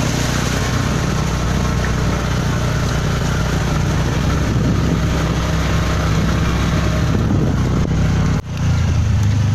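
Motor vehicle engine running steadily with road noise, heard from on board. The sound briefly drops out about eight and a half seconds in.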